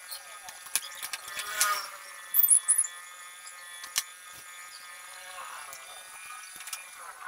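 Plastic miniature circuit breakers being worked out of tight holes in a plywood panel: a series of sharp clicks and knocks, with a couple of short squeaks a little over two seconds in. A steady hum runs underneath.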